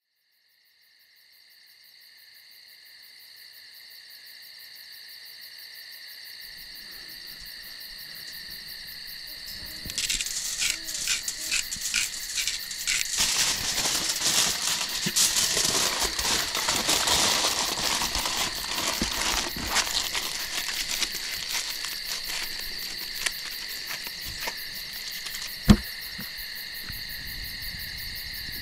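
Aluminium foil crinkling and rustling in dense bursts as it is wrapped by hand, over a steady high chorus of night insects. One sharp knock near the end.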